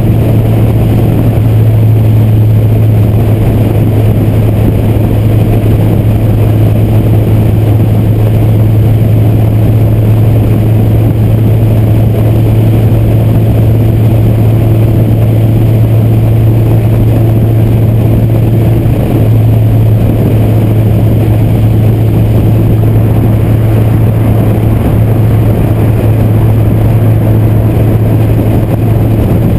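Naturally aspirated K24 2.4-litre inline-four in a Honda Fit at a steady highway cruise, giving one steady low engine drone. Heard from a camera mounted on the outside of the car, with heavy wind and road noise.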